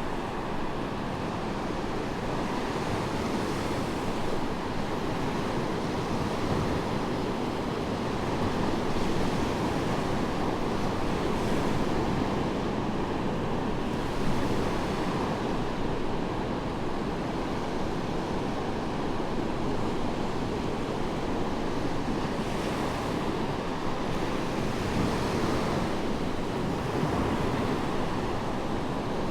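Medium waves breaking and washing up on a sandy beach, a continuous surf wash that swells every few seconds, with some wind.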